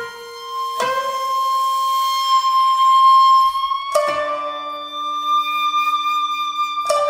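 Traditional Japanese jiuta ensemble music. A shakuhachi holds long, steady notes while koto and sangen (shamisen) strings sound sharp single plucks, three in all, about three seconds apart. The held pitch changes at each pluck.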